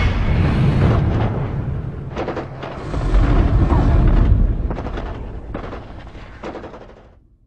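Battle sound effects: booms and scattered gunshots over a deep, continuous rumble, fading out near the end.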